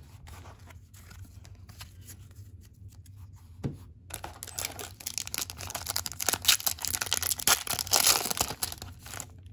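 Plastic baseball card pack wrapper being handled, then torn open and crinkled. Soft rustling comes first, then a dense crackling run from about four seconds in that grows louder near the end.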